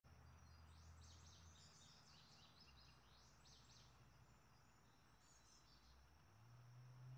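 Faint meadow ambience: a bird sings a quick run of short high notes about a second in and again more faintly later, over a low steady hum.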